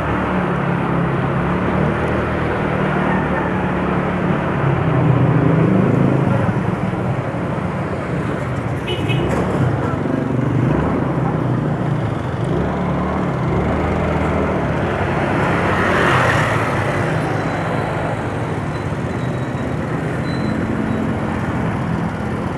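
Motorcycle engine running on the road, its steady note shifting slightly in pitch, mixed with road and traffic noise.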